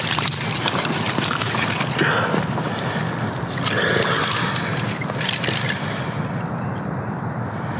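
Splashing and handling noise as a small bass is fought out of a creek and swung up onto the bank, with rustling of brush and leaves; the noise is dense and steady, with short bursts throughout.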